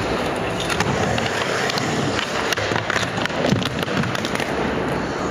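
Skateboard wheels rolling on a skatepark ramp, then the board clattering and a rider slamming onto the ramp about three and a half seconds in.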